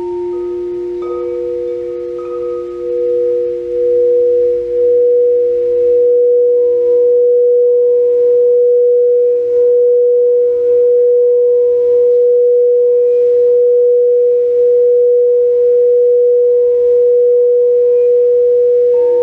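A singing bowl played by circling its rim with a mallet: one pure, steady tone that swells over the first few seconds and then holds, with a faint rub about once a second. A lower bowl's tone fades out beneath it.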